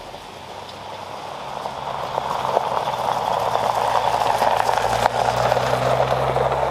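Two-door Jeep Wrangler driving past on a gravel road: tyres crunching on the gravel and the engine's low hum beneath, growing louder over the first few seconds as it draws near.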